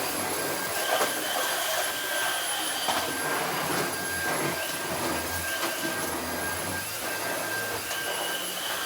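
Cordless Dyson stick vacuum running steadily: a high motor whine over the rush of air, with a higher tone that comes and goes and scattered clicks and rattles.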